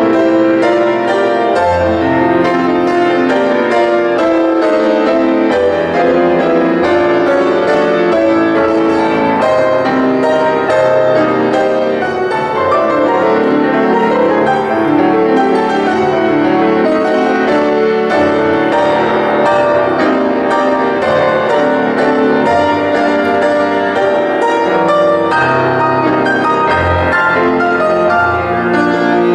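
Solo grand piano played continuously, a dense stream of notes in both hands at a steady, fairly loud level.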